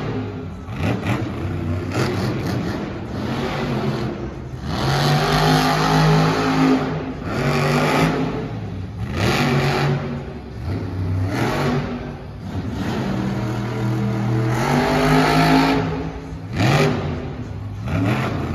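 Monster truck's supercharged V8 engine revving again and again. Each rev climbs sharply in pitch, holds briefly and falls away as the throttle is lifted, about every two to three seconds.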